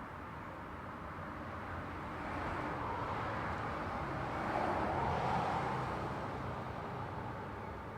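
Road traffic noise: steady tyre hiss with one vehicle passing by, growing louder to a peak about five seconds in and then fading.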